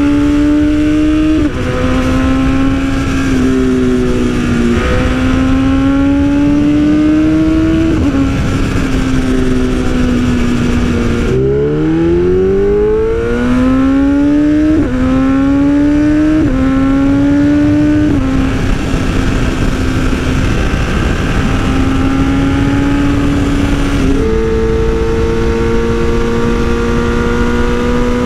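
2020 BMW S1000RR M Sport's inline-four engine through an Austin Racing exhaust while riding: the exhaust note climbs with the revs and drops at each upshift. About a third of the way in it falls to low revs, then pulls hard through several quick upshifts. Near the end the pitch jumps up once, as on a downshift, over a steady rush of wind noise.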